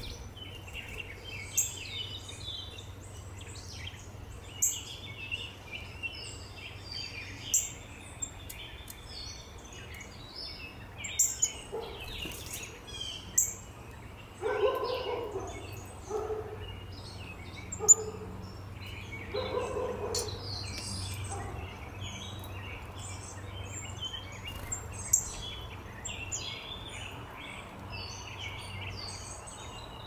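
Small songbirds chirping and calling at a seed feeder in many short, high notes, with a run of lower, fuller calls in the middle. Sharp clicks stand out every few seconds over a steady low hum.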